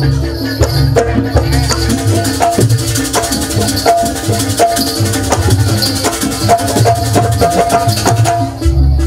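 Javanese jaranan ensemble accompanying the dance: drums and pitched percussion in a busy, repeating rhythm, with one held high note about two-thirds of the way through.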